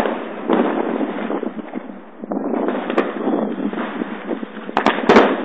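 Fireworks and firecrackers going off close by over a dense, continuous crackling. There is a sharp bang at the start, another about three seconds in, and a quick cluster of several loud cracks near the end.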